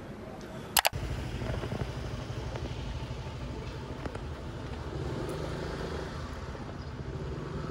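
Road traffic: a motor vehicle engine running with a steady low hum. It starts about a second in, right after a sharp double click.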